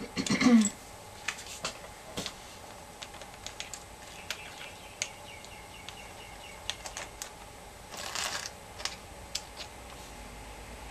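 Small seashells clicking and clattering against each other and the canvas as they are picked up and pressed into place: scattered sharp taps, with a busier rattle at the start, the loudest moment, and again about eight seconds in.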